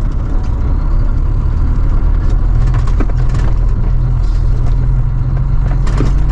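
Truck engine running steadily while driving slowly over a rough dirt track, with a few short knocks and rattles from the bumpy road.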